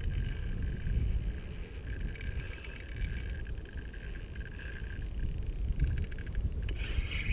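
Wind buffeting the camera microphone in an uneven low rumble, with a faint thin whirr coming and going and a quick run of ticks near the end.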